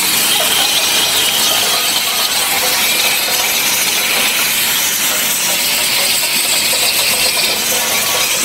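Cap anti-theft ring slitting machine running, slitting the tamper-evident rings of plastic bottle caps: a loud, steady mechanical hiss without letup.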